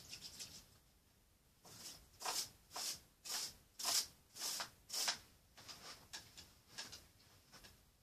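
A paintbrush being washed out, a run of short scrubbing, rubbing strokes about two a second, then fainter ones near the end.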